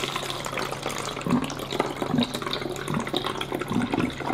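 Water glugging and gurgling as it drains from an upended plastic drinks bottle through a 3D-printed neck-to-neck coupler into a second bottle below, air bubbling up against the flow in irregular gulps.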